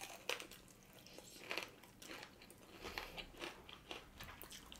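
Close-up sounds of fried chicken being bitten and chewed: several short, sharp crunches of the fried batter, scattered among quieter chewing.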